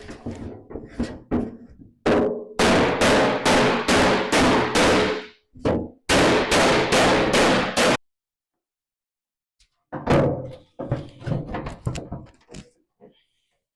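Hammer blows on a bent metal wheelbarrow tub resting on wooden blocks, beating it back straight. There are runs of strikes about two a second, then a run of lighter, more uneven knocks near the end.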